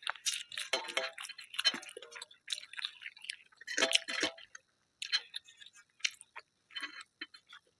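Close-miked chewing of a mouthful of food, with irregular short clicks and crackles, the loudest about four seconds in.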